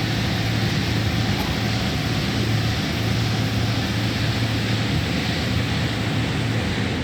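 Insulated-glass press machine running: a steady rushing hiss over a low motor hum, which cuts off just before the end.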